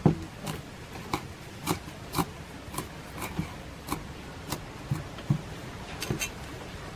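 Cleaver chopping green leaves on a wooden chopping board: sharp knocks of the blade hitting the wood, about two a second.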